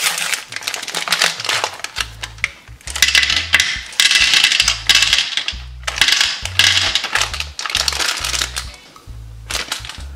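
Plastic M&Ms packet crinkling as it is torn open and the candies are poured out onto a plastic tray. Background music with a stepping bass line comes in about two seconds in.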